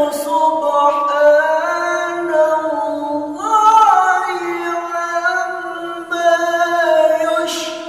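A man reciting the Qur'an in melodic tilawah style: long held notes with sliding, ornamented turns, breaking off briefly about three seconds in and again about six seconds in.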